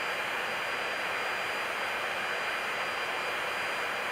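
Steady rushing cabin noise in the flight deck of an Airbus A340 in flight: airflow and engine noise as an even hiss, with a faint steady high whine running under it.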